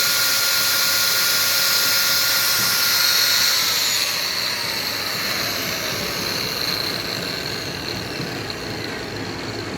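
High-speed motor-driven machine whining steadily, then switched off about three and a half seconds in and spinning down, its whine falling in pitch as it slows.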